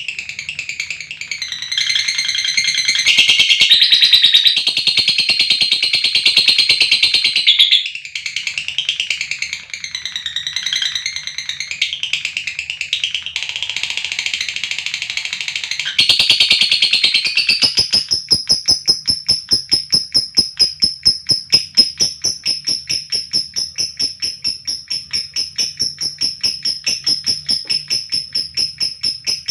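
Lovebird calling: shrill, wavering squawks for the first half. Then, a little past halfway, a long unbroken run of rapid repeated high notes on a steady pitch, the long "ngekek" trill that lovebird keepers prize.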